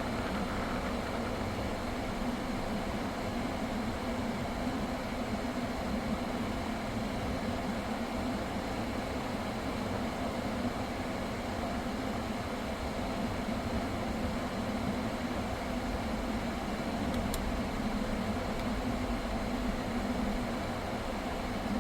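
Kia K5 engine idling, a steady, unchanging hum, with one faint tick about three-quarters of the way through.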